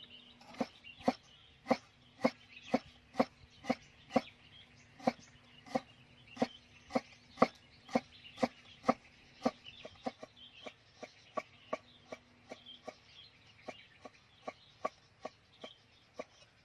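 Knife chopping food on a wooden board, about two sharp strokes a second, turning lighter and quicker about ten seconds in.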